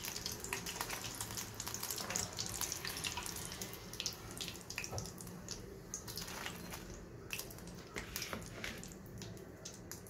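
Hot oil sizzling and crackling in a frying pan around fried pies, a dense patter of small pops that grows somewhat quieter about halfway through.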